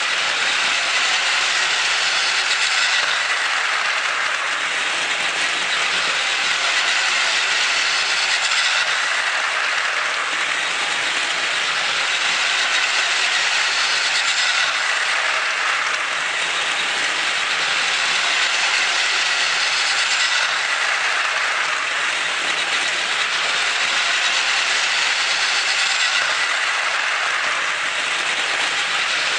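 Plarail E6 series Komachi toy shinkansen, its motor car fitted with an Ultra Dash Motor, running steadily on plastic track: a continuous motor whir with wheels rattling on the track joints. It grows louder and brighter about every six seconds as the train comes round the loop past the camera.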